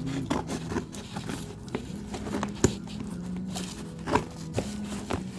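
Packaging being handled and opened: light rustling with scattered clicks and taps, a sharper one about halfway through, over a steady low hum.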